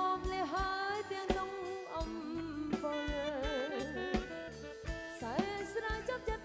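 Khmer modern band music: a melody that bends and wavers in pitch over a steady drum beat.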